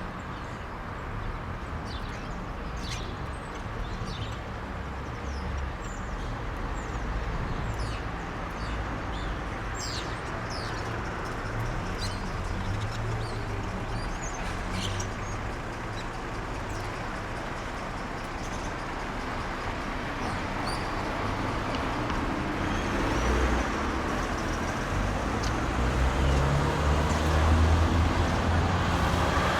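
Outdoor night ambience: scattered short high chirps over a steady low rumble, with a vehicle drawing closer and getting louder over the last several seconds.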